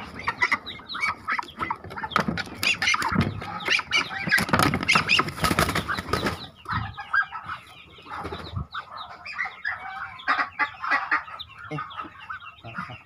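Muscovy ducklings peeping in a nest box as they are gathered by hand. A loud flurry of flapping and rustling runs from about two to six seconds in.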